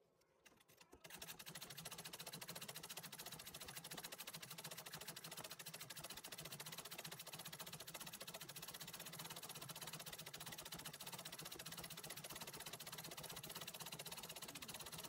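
Antique treadle sewing machine stitching embroidery: the needle runs in a fast, even clatter that starts about a second in and keeps going steadily.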